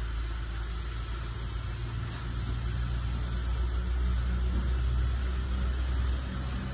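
Steady low hum of a running workshop machine, growing louder through the middle and easing off near the end.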